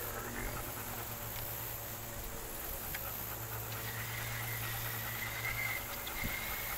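Small electric motor of a fishing reel whining steadily as it winds line in after a cast, coming in clearly a little past halfway, over a steady low hum.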